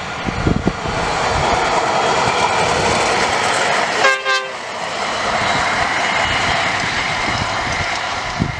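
WMB-10 rail maintenance motor trolley passing close by at speed, its engine and wheels on the rails building to a steady rushing noise. About four seconds in it gives a short horn blast, the Rp1 'attention' warning signal.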